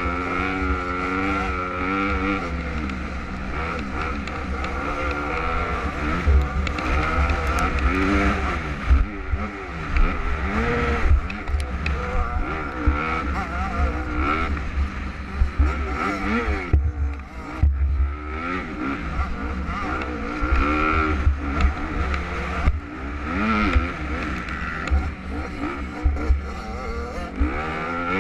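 Supermini-class motocross bike engine revving hard and dropping back over and over as it accelerates and shifts through the gears, with heavy wind rumble on the microphone.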